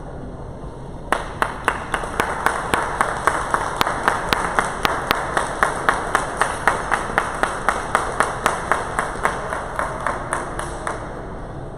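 Spectators clapping in unison, a steady beat of about four claps a second, starting about a second in and stopping near the end.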